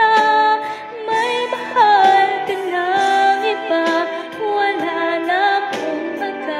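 A woman singing a melody over backing music.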